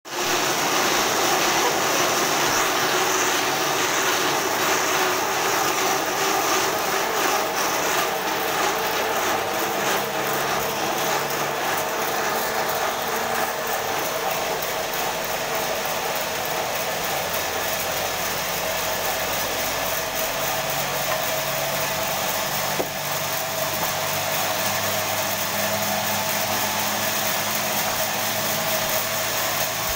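Sawmill band saw running steadily as it cuts through a large log: a continuous mechanical noise with a steady whine.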